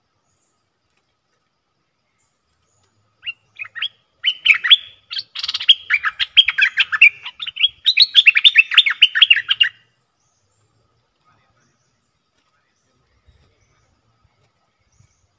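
Bulbul (นกดอกแตง) giving a loud run of rapid, chattering calls, starting about three seconds in and breaking off after about six seconds. These are a decoy bird's aggressive challenge calls, used to lure and provoke wild birds of its kind.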